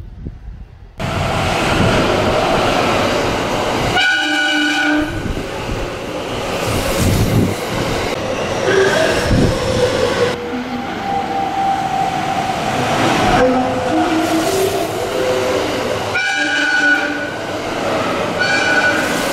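Electric trains running past with rail noise and sounding their horns: a short air-horn blast about four seconds in, a stepped electronic music-horn melody in the middle, and two loud air-horn blasts near the end.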